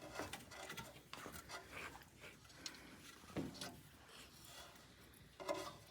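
Faint handling noises: scattered small clicks and rubbing as silicone plugs and thermocouple parts are worked back into a dental press furnace by hand.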